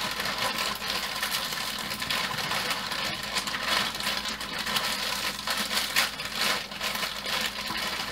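A plastic bag of frozen broccoli florets crinkling as it is squeezed and shaken, with the hard frozen florets clattering as they drop into a slow cooker's crock in many small clicks.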